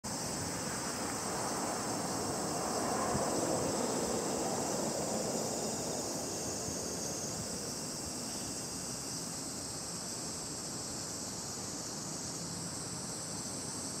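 Steady, high-pitched chorus of insects, with a broad rushing noise underneath that swells over the first few seconds and then eases off.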